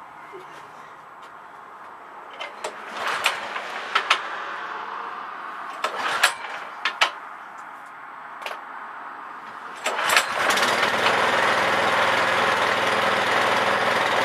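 Scattered clicks and knocks, then about ten seconds in the MTD snow blower's small engine (179 cc) starts and runs steadily. The start shows that the recoil starter works with its new rope.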